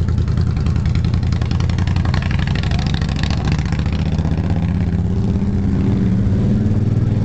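Several motorcycle engines running as bikes pass by, a steady low rumble, with one engine climbing in pitch in the second half as it speeds up.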